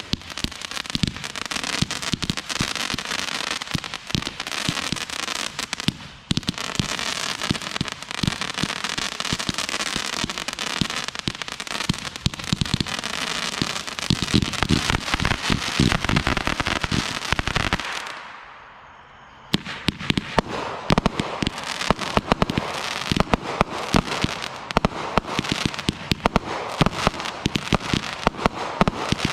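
Consumer fireworks going off: dense, rapid crackling and popping with many sharp reports. About two-thirds of the way through there is a short lull of a second or so, then the reports resume.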